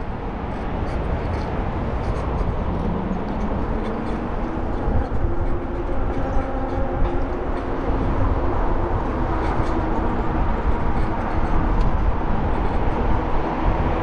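Wind rushing on the microphone and tyre noise of a bicycle riding along a paved bike path, a steady low rumble, with faint humming tones coming in about three seconds in.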